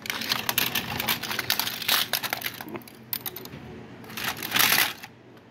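Die-cast and plastic model cars clinking and clattering against each other and the plastic crate as hands rummage through them, dense at first and thinning out, with a louder burst of noise about four and a half seconds in as one car is lifted out.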